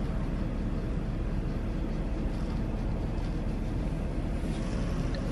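Truck engine idling, a steady low rumble heard from inside the cab with the driver's window down.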